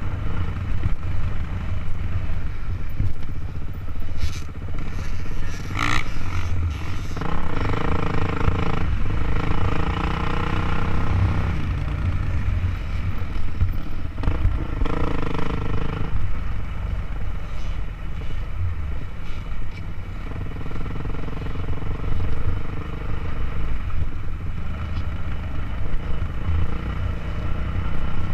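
Dirt bike engine running on a rough trail, its note coming through strongly in stretches as the throttle changes, under heavy wind rumble on the microphone. A few sharp knocks sound about four to six seconds in.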